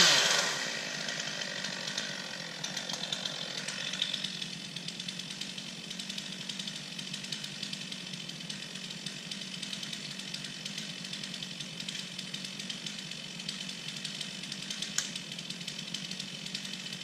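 Chainsaw dropping off full throttle right at the start and idling, a steady run with a light rattle of small clicks.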